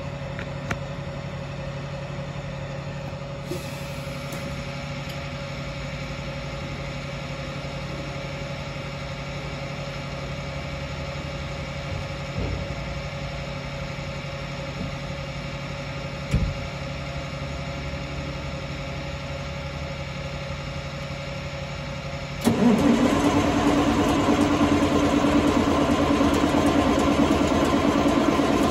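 Big Cam Cummins diesel in a Versatile 835 tractor cold-starting without starter fluid: after a steady low hum, the engine fires about 22 seconds in and catches, its pitch rising as it comes up to speed, then runs loudly and steadily.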